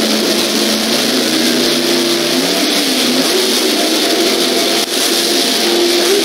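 Drag racing cars' engines running loudly at the starting line, their pitch wavering up and down as they are revved before the launch.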